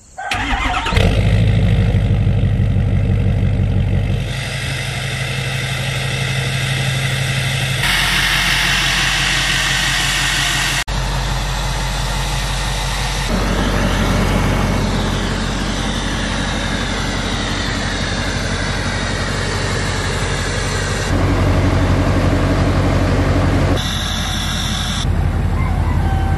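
Ford Super Duty King Ranch pickup's engine running at idle, a steady low drone. The sound changes abruptly several times as separate recordings are cut together.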